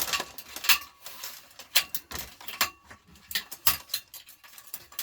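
Scattered sharp clinks and knocks from the metal parts of a fluorescent light fitting being handled and pried apart.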